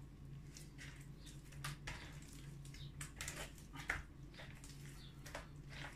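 Faint, irregular wet squelches and sticky clicks of very sticky sourdough being kneaded by hand in a plastic mixing bowl, over a low steady hum.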